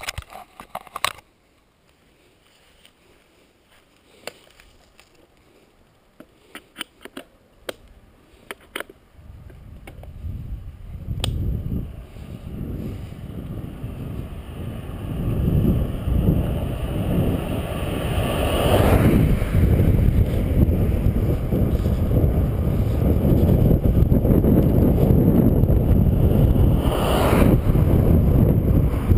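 A few sharp clicks and knocks as a camera on a bicycle is handled. From about ten seconds in, wind on the camera's microphone and tyres rolling on asphalt build up as the bike gathers speed downhill, settling into a steady loud rush with two brief louder gusts near the end.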